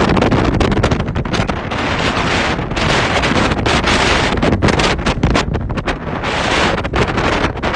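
Hurricane-force wind gusting hard, rising and falling unevenly and buffeting the microphone with rapid rumbling thumps.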